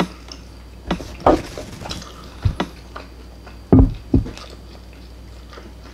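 A man chewing a mouthful of oven-baked steak and ground beef close to the microphone: about six short mouth noises, loudest nearly four seconds in.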